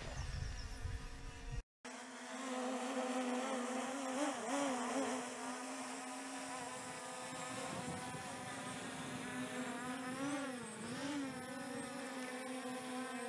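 C-Fly Faith 2 Pro quadcopter's brushless motors and propellers buzzing in flight, a steady hum whose pitch wobbles briefly about four and ten seconds in as the motors change speed. Low wind rumble on the microphone is heard before a short drop-out near the start.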